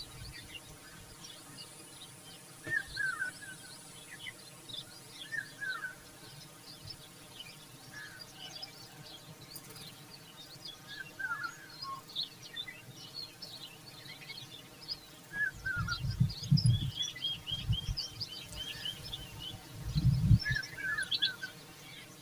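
Birds chirping: a short falling chirp repeated every few seconds among many higher chirps, with a quick run of rapid notes a little past the middle. Twice, near the middle and near the end, a louder low rumble.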